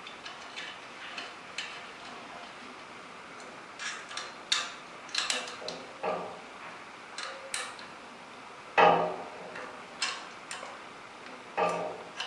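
Irregular small metallic clicks and taps of a rifle scope's rings and mount being handled and worked on by hand, with a sharper knock about nine seconds in and another near the end.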